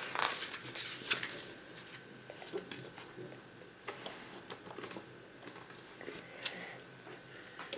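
Small plastic Lego pieces being handled and pressed onto a model: a rustle in the first second, then scattered light clicks.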